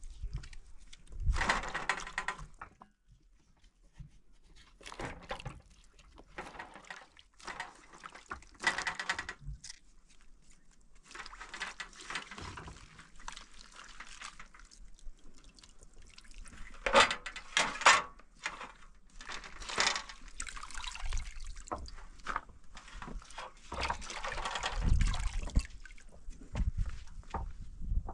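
Wet hands squeezing and turning chopped vegetable stalks in a stainless steel pot, with irregular splashes and drips of liquid.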